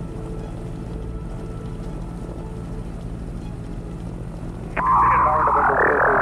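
Steady low hum of the Cavalon gyroplane's engine at idle, heard through the cockpit intercom recording. About five seconds in, a sudden loud, wavering high tone cuts in over it and holds.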